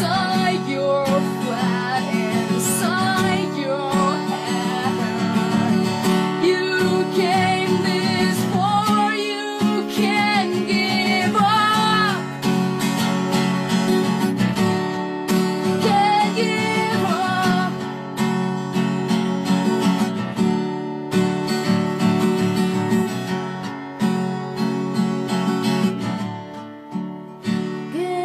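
Background music: strummed acoustic guitar carrying an instrumental passage, with a melody line gliding over the chords.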